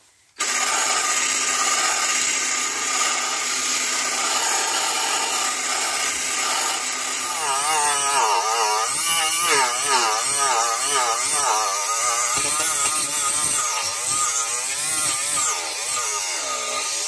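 Small hand-held rotary tool with a wire brush, switched on about half a second in and running at high speed as it scrubs rust off steel sheet. From about halfway its pitch repeatedly dips and recovers as the brush is pressed against the metal.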